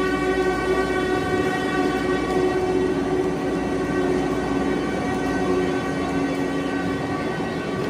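The Bilaspur–Bikaner Express's red passenger coaches rolling slowly past, with a long, steady tone held unbroken above the rumble of the wheels.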